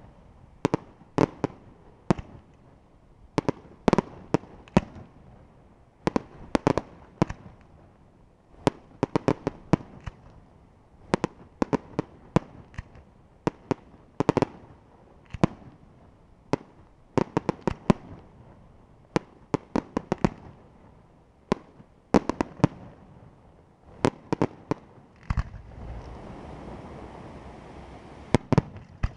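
Aerial firework shells bursting in rapid, irregular volleys of sharp bangs, several a second at times, with short gaps between the clusters. In the last few seconds a steady rushing noise rises under the bangs.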